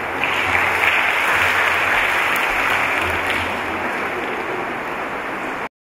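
A large audience of schoolchildren clapping: a dense, steady patter of applause that stops suddenly near the end.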